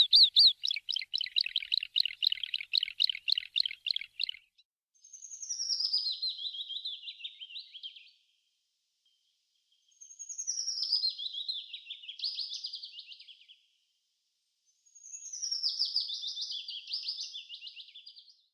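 Songbird singing: a rapid, even trill for the first four seconds or so, then three separate songs, each a run of quick notes falling in pitch and lasting a few seconds, with short pauses between them.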